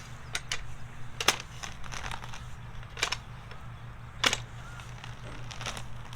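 A few sharp, irregular clicks and knocks over a steady low hum.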